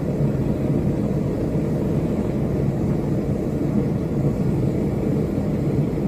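Propane burner firing a small melting kiln at idle, a steady low rumble of the flame burning inside the kiln. This is the kiln running properly: the combustion is taking place in the kiln rather than inside the burner, so there is no popping or snapping.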